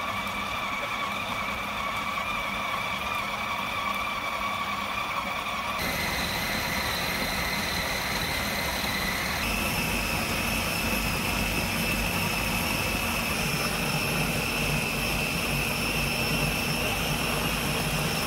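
Food processor with a steel blade running steadily under load, kneading a thick vital-wheat-gluten dough until it turns chewy. A steady motor whine whose pitch steps down about six seconds in and up again a few seconds later.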